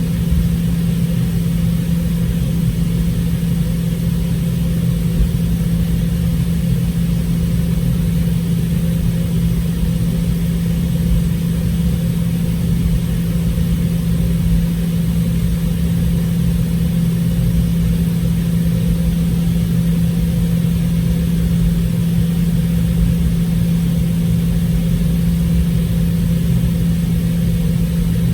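Steady drone inside the cabin of a Boeing 717 on the ground, with one strong steady low hum and no rise in power.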